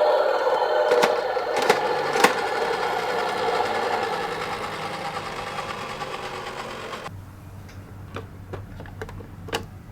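Toy ambulance minicar rattling as it rolls down a slope, the whirring sound fading steadily. It cuts off abruptly about seven seconds in, leaving a faint low hum and a few scattered clicks.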